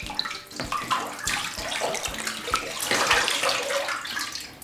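Runny slime pouring from a plastic bucket over a person's head and splashing into a bathtub, a continuous wet pouring and splattering.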